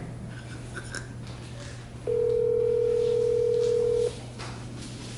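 Telephone ringback tone heard through a phone's speaker: one steady ring about two seconds long, starting about two seconds in, as an outgoing call rings unanswered.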